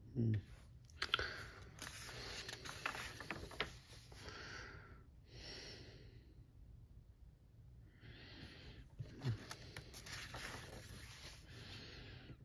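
Paper pages of a coloring book being turned by hand twice, each turn a few seconds of paper rustling with small taps and clicks, with a soft thump at the start of each. A few breaths are heard between the turns.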